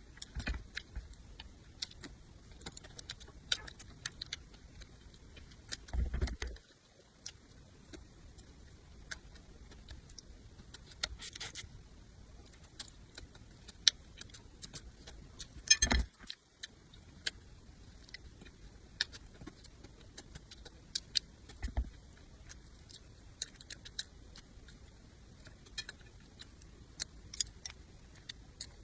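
A person eating close to the microphone: many small wet clicks and smacks of chewing, with a few louder knocks, at about six, sixteen and twenty-two seconds in.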